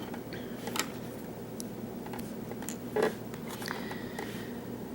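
A few faint small clicks and one slightly louder tap, about a second in and near the middle, from the brass pins and tweezers of a disassembled padlock being handled, over a steady low hum.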